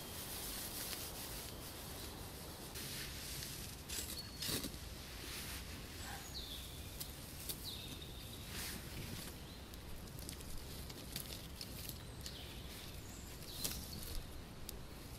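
Quiet woodland ambience with a bird chirping briefly several times, and a few short scrapes and clicks from a dry-grass tinder bundle being handled and lit with a firesteel.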